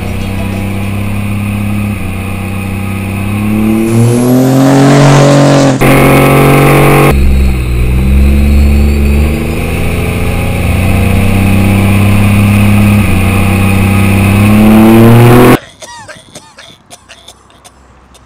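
Diesel pickup truck engine floored to roll coal, accelerating with its pitch climbing as it revs, once a few seconds in and again later. It cuts off abruptly about fifteen seconds in, leaving only faint scattered sounds.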